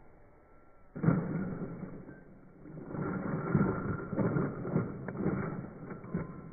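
Slowed-down, pitched-down workshop audio of hands-on work on a wooden bench frame: a sudden thud about a second in, then a run of deep, dragged-out knocks and rumbles.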